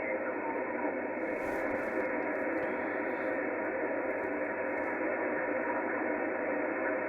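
Steady, muffled hiss and static of HF band noise from a Kenwood TS-450S transceiver's receiver, played through an external speaker, with no station audible.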